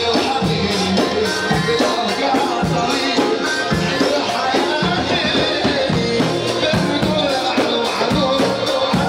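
Loud live Arabic party music played through microphones: a male singer with a band over a steady drum beat.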